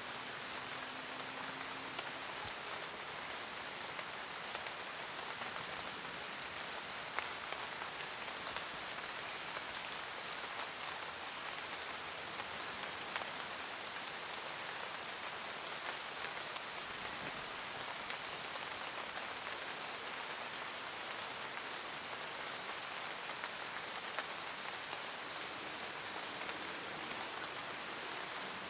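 Steady rain falling in a forest, with many individual drops pattering on leaves and other surfaces.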